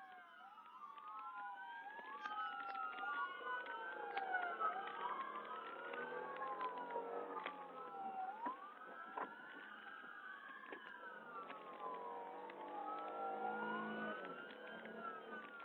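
Several police car sirens wailing at once, their slow rising-and-falling tones overlapping throughout, with scattered clicks.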